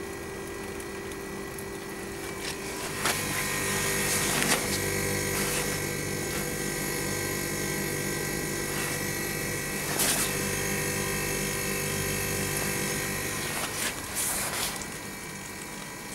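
Cold-room refrigeration condensing unit running: a steady hum and whine from its compressor and fan, which grows louder a few seconds in as the unit is approached. A few sharp clicks and knocks come from the unit's panel and fittings being handled.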